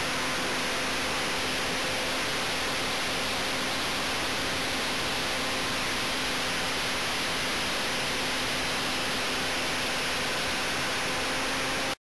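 Onboard audio from a flying Clouds Fly 127 RC plane: a steady rushing hiss of airflow over the camera microphone, with a faint steady motor and propeller hum underneath. It cuts off dead near the end, where the camera stops recording.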